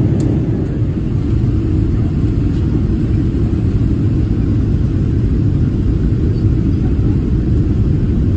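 Steady low rumble of a moving vehicle heard from inside, holding an even level throughout.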